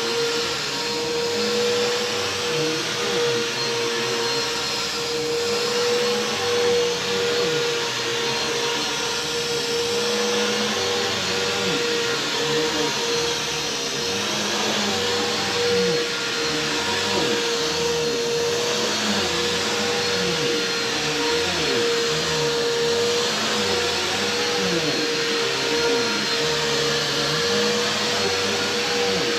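Bissell PowerForce bagged vacuum cleaner running steadily: a constant motor whine over the rush of air, swelling a little now and then.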